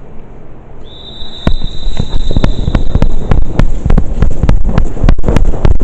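Airsoft guns firing: a rapid, irregular string of sharp pops, several a second, starting about a second and a half in. A thin high whine is also heard from about one to three seconds in.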